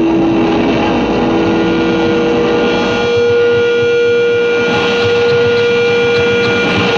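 Loud droning music: one sustained note over a dense, noisy wash, the held pitch stepping up to a higher note about three seconds in.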